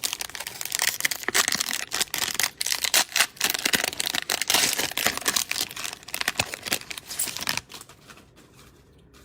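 Cellophane wrapper of a trading-card cello pack being torn open and crinkled: a dense crackling that dies down about seven and a half seconds in.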